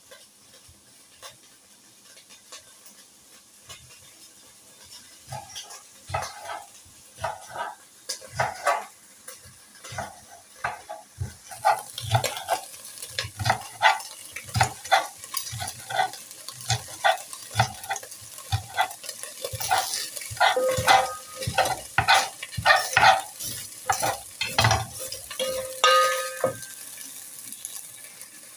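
Knife chopping onions on a chopping board: scattered knocks at first, then quick, regular cuts about two a second from about halfway. A steady hiss joins as the cutting speeds up, and a short pitched sound comes near the end.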